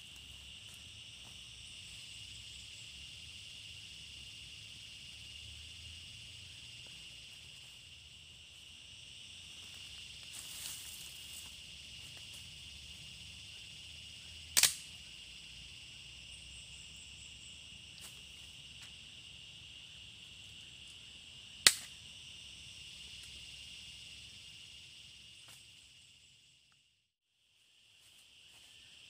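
A steady high chorus of insects in the forest, with two sharp cracks of dry sticks being snapped by hand, about 15 s and 22 s in. There is a little rustling of sticks and leaves around 10 s. The chorus drops out briefly near the end.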